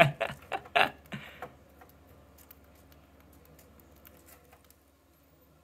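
Cockatiel rummaging through loose birdseed on newspaper with its beak: a quick run of sharp taps and rustles in the first second or so, then fainter scattered pattering that dies away near the end. The owner says the bird is not really eating the seed, only digging through it.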